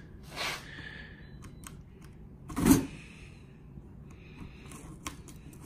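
Folding knife blade slitting the tape and cardboard seam of a shipping box: a faint short scrape about half a second in, then a louder rasp of the blade through the cardboard a little before the middle.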